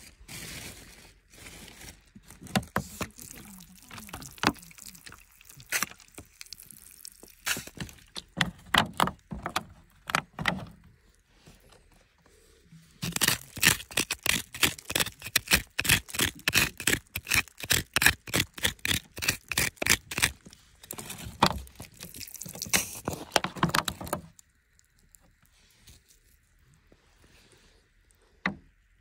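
Digging in a hard, dry dirt bank: rapid scraping and chipping strokes with loose soil crumbling away. The strokes come in runs, densest and loudest in the middle, and stop about 24 seconds in, with a single click near the end.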